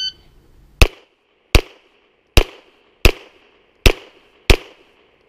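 A shot timer's start beep ends right at the start. About a second later comes a string of six 9mm pistol shots from a Glock 34 Gen4 firing 147-grain ammunition, evenly spaced a little under a second apart, each a sharp crack with a short echo.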